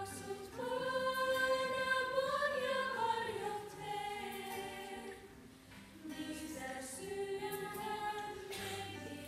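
A small group of students singing a song together, holding long notes.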